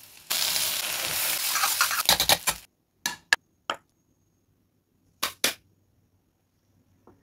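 Egg fried rice sizzling in a hot wok for about two seconds, ending in a quick run of spatula clatters against the pan. After that come a few separate sharp clinks and taps of a glass bowl and plates.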